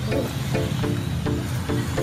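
Background music: short repeated notes, about two or three a second, over a steady low bass.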